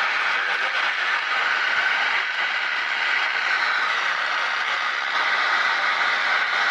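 Multi-band CB radio hissing steady static through its speaker on FM as it steps through the EU channels, with no station coming in.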